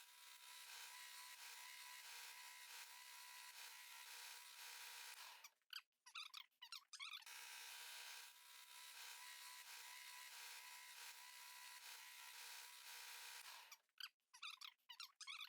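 Belt grinder faintly grinding a layered-steel knife blade: two long steady passes of about five seconds each, each ending in a few short, broken touches of the blade against the belt.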